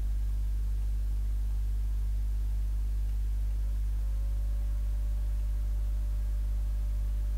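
Steady electrical mains hum at about 50 Hz and its overtones. A faint, steady higher tone joins about four seconds in.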